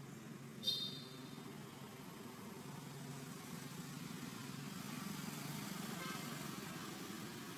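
Motor vehicles running on a road: a steady low engine hum, swelling around five to six seconds in as one passes. A short high-pitched chirp sounds less than a second in.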